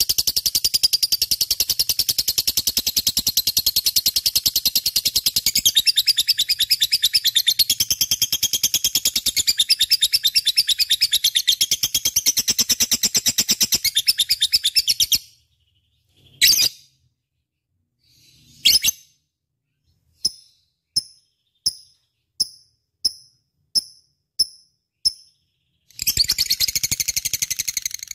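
Lovebird chattering: a long run of rapid, high-pitched chirps for about fifteen seconds, then a pause broken by two single calls, then short chirps about two a second, and rapid chattering again near the end.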